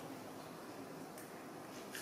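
Quiet room tone with a couple of faint soft clicks.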